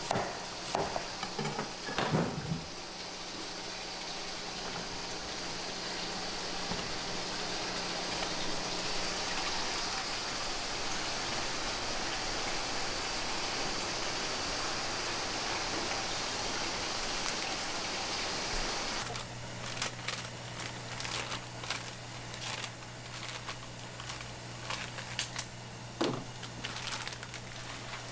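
Tteokbokki cooking on a hot iron griddle: a steady sizzling hiss, with a few knocks at the start. About two-thirds of the way through it gives way to clinks and knocks of utensils over a low steady hum.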